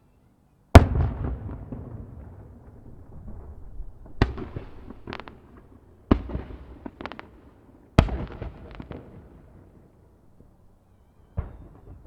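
Aerial firework shells bursting: five sharp booms, the first about a second in and the loudest, each trailing off in a long echo, with smaller pops and crackles between them.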